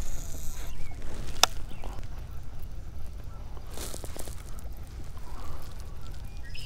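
Geese honking intermittently, with a single sharp click about a second and a half in, over a steady low rumble.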